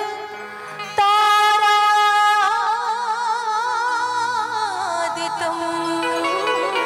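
Live devotional singing: a woman's voice sets in about a second in and holds one long note, which wavers with vibrato and slides down, over sustained low accompaniment notes.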